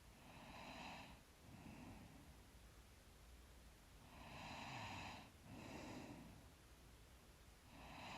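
A sleeping woman's slow, faint breathing. Each breath has a longer, louder part followed by a shorter, softer one, about every three and a half seconds: two full breaths, with a third starting near the end.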